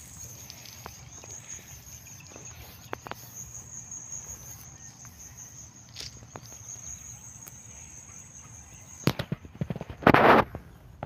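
A high, steady, pulsing insect trill with a few light ticks, cut off about nine seconds in by loud, irregular crackling rustles as rice leaves and panicles scrape against the phone.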